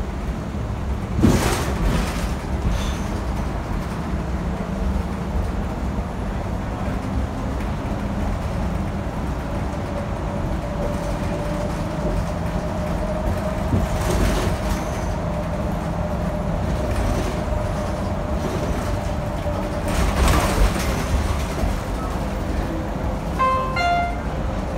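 Ride inside a 2019 New Flyer XD60 articulated diesel bus on the move: steady engine and road rumble, with a few sharp knocks and rattles about a second in, near the middle and around twenty seconds in. From about ten to twenty seconds in, a steady whine rides over the rumble.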